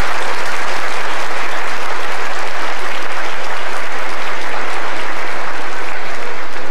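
Congregation applauding steadily in a dense mass of clapping that thins out near the end.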